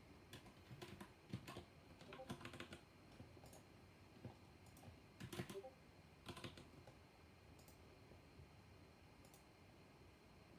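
Typing on a black-switch mechanical keyboard: irregular runs of faint keystrokes over the first seven seconds, then only a few scattered key presses.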